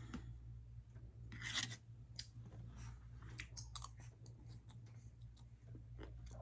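A person chewing food close to the microphone: scattered small clicks and crunches, with one louder crunchy burst about one and a half seconds in, over a steady low hum.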